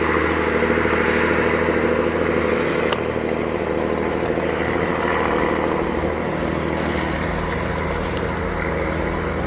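Peterbilt 359 truck's Caterpillar 3406 straight-six diesel engine running at a steady speed.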